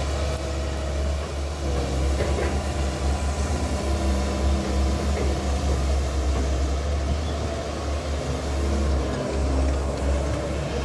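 CAT 320 hydraulic excavator's diesel engine running steadily with a deep rumble while the machine works its boom and bucket.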